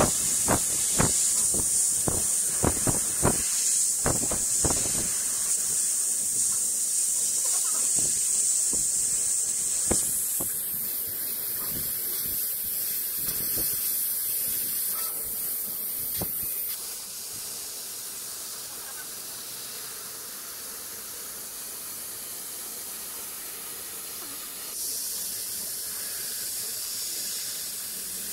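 Steady hiss of a CO2 laser cutter's air-assist jet blowing through the cutting head as it cuts 5 mm MDF. A quick run of clicks comes in the first five seconds. The hiss steps down in level twice and back up once.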